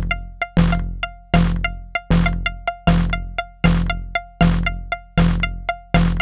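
Eurorack modular synthesizer patch clocked by a Make Noise TEMPI, playing a steady electronic rhythm: a deep bass thump about every three-quarters of a second, with short bright metallic pings falling between the thumps.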